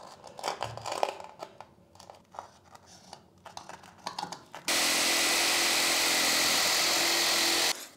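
Faint scratching and light taps of a pencil being run along a stone wall to scribe a line onto a wooden board. About five seconds in, a corded jigsaw starts suddenly, cuts steadily through the wood for about three seconds, and stops abruptly.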